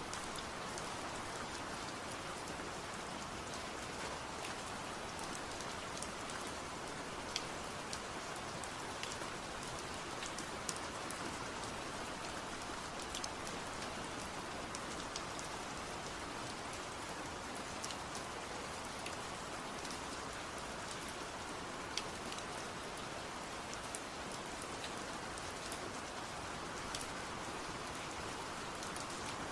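Steady rain falling, a continuous hiss dotted with the sharp ticks of individual drops hitting a surface.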